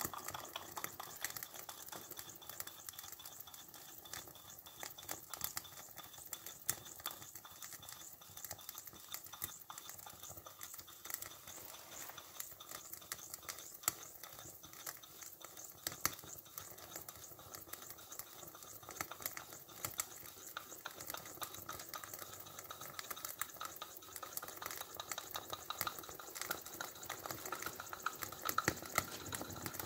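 Toy steam engine's brass boiler heating up: dense, irregular crackling and sizzling ticks over a faint hiss, with a faint steady tone that grows louder near the end.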